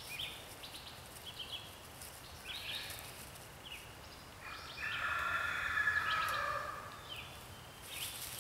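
Small birds giving short, repeated falling chirps, with a louder drawn-out creaking call or squeal lasting a couple of seconds about halfway through. Near the end the chicken wire mesh rustles as it is pulled.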